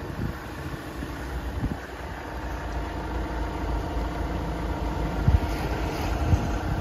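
A Volkswagen Crafter's diesel engine idling steadily, with two brief thumps about five and six seconds in.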